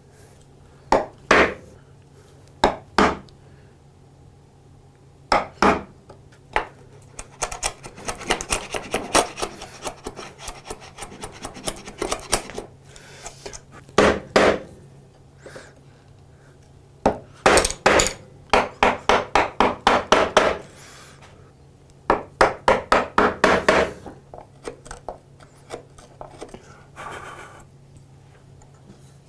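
Scraping strokes worked by hand against a hard surface. First come a few pairs of sharp strokes, then longer runs of quick back-and-forth strokes at about six a second.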